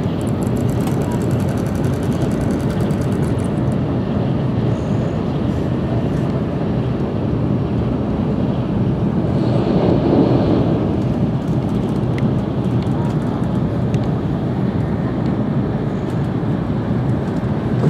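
Steady running noise of a Tokaido Shinkansen at speed, heard inside the passenger cabin: a constant low rush of wheels on rail and air past the car body, swelling for a moment about ten seconds in.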